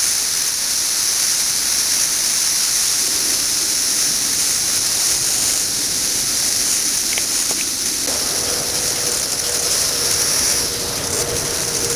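Dense chorus of cicadas, a steady high-pitched hiss-like drone. A low steady hum joins about eight seconds in.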